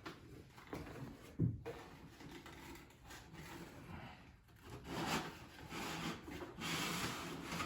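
Rubbing and scraping handling noises, with one sharp knock about a second and a half in.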